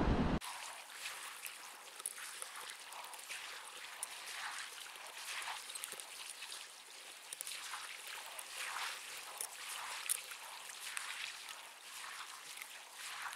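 Underwater sound picked up through a camera housing fixed to a crab trap on the seabed: a faint watery hiss dotted with many small clicks and crackles. A brief burst of wind on the microphone cuts off less than half a second in.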